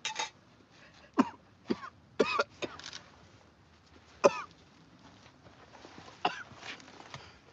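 A man coughing and gagging in a series of short, sudden bursts, his reaction to a mouthful of surströmming (fermented Baltic herring).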